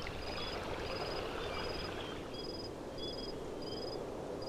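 Outdoor nature ambience: a soft steady rush like flowing water, with short high chirps repeating evenly about every two-thirds of a second and lower, wavering chirps between them.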